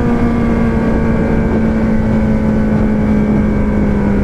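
Four-cylinder engine running steadily at high revs, its pitch sinking slowly as the revs ease off, over rushing wind and road noise.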